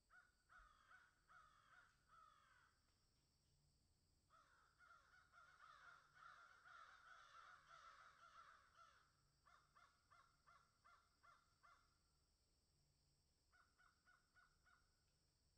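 Faint bird calls: bursts of short, rapidly repeated falling notes, broken by brief pauses.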